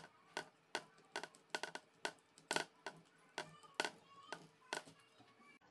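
Irregular sharp clicks, two or three a second, from a hand screwdriver turning a screw into an electric fly swatter's plastic handle. They stop abruptly near the end.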